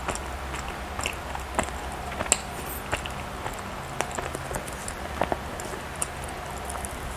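Close-miked chewing of soft bread or cake, with irregular wet mouth clicks and smacks over a low steady hum.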